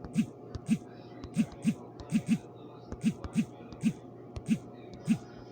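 Typing: irregular key taps, about two a second, each a soft thump with a sharp click.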